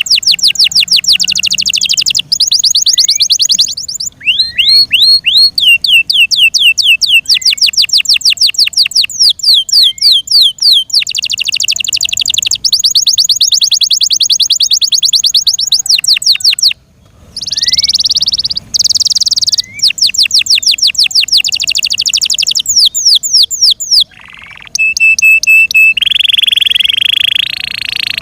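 F1 Yorkshire-cross canary singing loud, fast trills of quickly repeated falling notes, switching to a new trill every few seconds with a couple of brief breaks. Near the end it holds one steady note, then goes into a buzzy roll.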